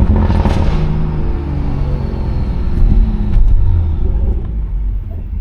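BMW 340i's turbocharged B58 inline-six driving through a loud modified exhaust: a low, steady drone with a brief airy rush about half a second in, getting louder around three seconds in.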